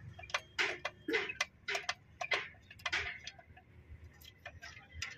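Light clicks of metal on metal, a few a second, growing fainter after about three seconds, as a loosened 24 mm banjo bolt on a tractor's hydraulic pump pressure pipe is spun out by hand.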